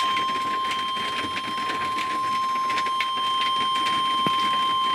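NOAA Weather Radio's 1050 Hz warning alarm tone: one steady, unbroken beep from a weather radio's speaker over a crackly hiss, the signal that an emergency warning broadcast is about to follow.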